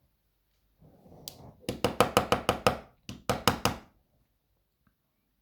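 Rapid knocks on a DOM iX 6SR dimple-lock core to shake a key pin out of its chamber: a quick run of about seven, a short pause, then about four more, after a little handling noise.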